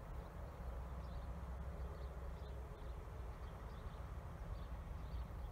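Faint, steady low rumble of a distant locomotive approaching slowly, with faint high chirps from insects in the grass repeating through it.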